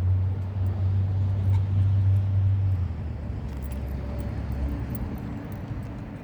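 A low engine-like hum that drops in pitch about three seconds in and fades away, as a passing motor vehicle would. Faint small jingles or ticks sound through it.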